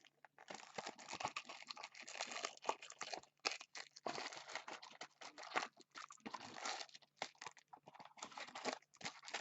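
Foil card packs and cardboard box packaging crinkling and rustling as they are handled, with irregular crackles and bursts of rustle.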